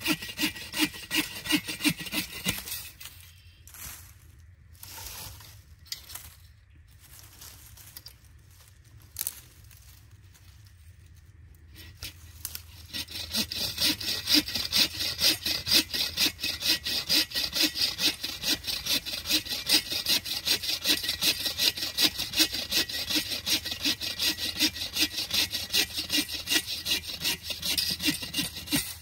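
Hand saw cutting firewood in quick, even back-and-forth strokes. It stops after a couple of seconds and starts again after a pause of about ten seconds.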